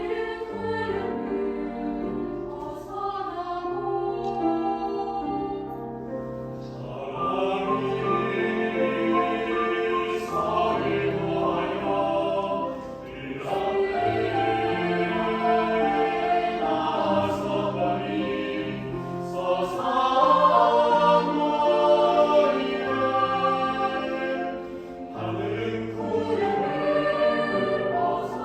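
Choir singing in concert, with several voice parts holding and moving between notes; the sound swells louder about a quarter of the way through.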